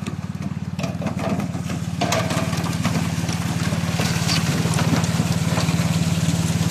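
Engine running steadily with a fast, even beat, over splashing and clattering as live fish flop and slide down a steel chute in running water. The splashing grows louder about two seconds in.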